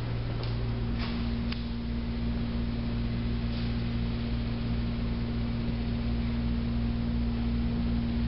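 Steady low hum, joined just under a second in by a higher steady tone. A few faint clicks come in the first two seconds and once more near four seconds.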